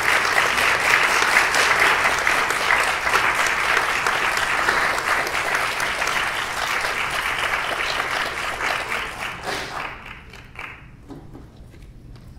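Audience applauding, a steady patter of many hands clapping that dies away about ten seconds in.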